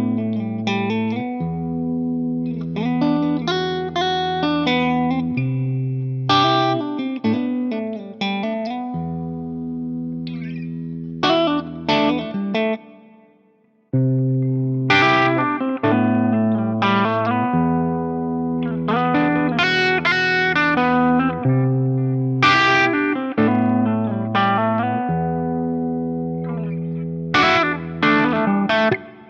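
Guitar played through effects: plucked melodic notes over held low notes, in a phrase that fades out, stops for about a second midway, then is played again and ends abruptly near the end.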